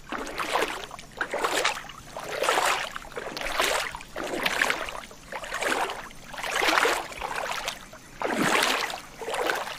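Water lapping and sloshing in repeated surges, each swelling and fading, roughly one a second.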